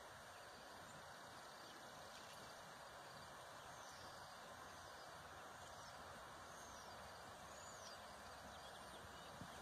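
Near silence: faint steady outdoor background hiss, with a few faint high bird chirps in the middle.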